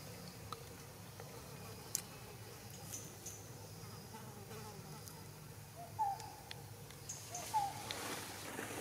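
Insects buzzing in a steady low drone, with a few short chirps from about six seconds in.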